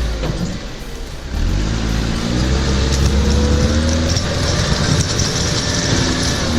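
A vehicle engine running hard. About a second in it grows louder, then its pitch rises for a couple of seconds as it revs up, and it holds steady.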